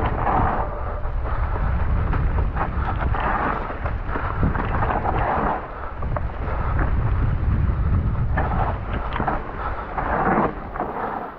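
Wind buffeting the microphone of a camera on a mountain bike riding fast down a dirt forest trail, with the tyres crunching over dirt and dry leaves and the bike rattling over bumps, in irregular loud surges.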